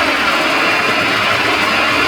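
Loud, heavily distorted audio run through a robotic-voice style effect. It plays continuously as a dense, warbling jumble with pitches that sweep up and down.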